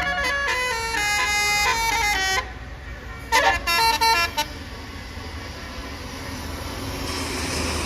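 Bus telolet horn playing a quick tune of stepped notes that stops about two and a half seconds in, then a second short run of notes about a second later. After that, vehicle engine and road noise rise toward the end.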